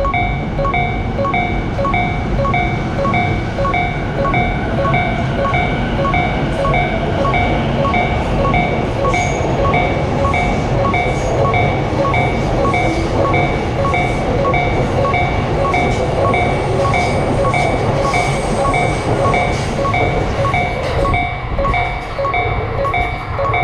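Japanese level-crossing warning bell ringing its steady "kan-kan" at a little over two strikes a second, while a train passes over the crossing with a steady rumble and wheel clatter. The rumble eases off near the end.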